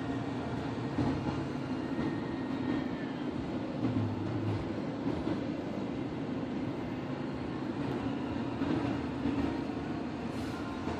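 Radio-controlled trucks running on a racing track: a steady mechanical whir with small rises and falls.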